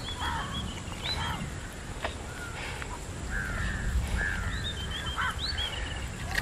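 Several birds calling and chirping, short high chirps and buzzy calls throughout, over a few faint clicks and scrapes of a steel spoon scooping chicken out of a charred tender coconut.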